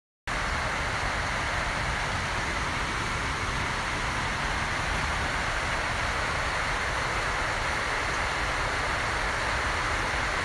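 Steady, even hiss of noise that cuts in abruptly out of dead silence about a third of a second in and holds unchanged.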